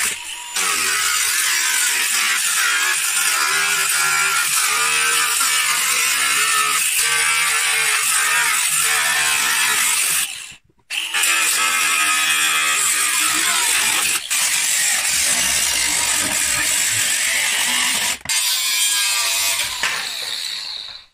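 DeWalt angle grinder with a cutting disc slicing through the rusty steel outer sill of a car. It runs almost continuously, stops briefly about halfway through, and dies away near the end.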